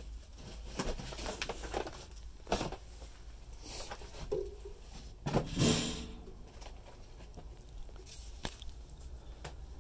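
Scrapes, rustles and scattered knocks from someone clambering through debris in an abandoned house, with a louder scrape about five and a half seconds in.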